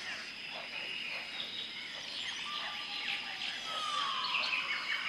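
Jungle ambience: many birds calling and chirping over a steady high-pitched insect drone, with one falling whistled call about four seconds in.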